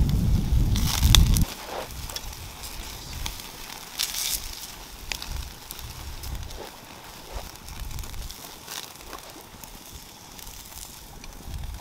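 Wood campfire crackling, with scattered sharp pops. Wind rumbles on the microphone for about the first second and a half, then cuts off suddenly.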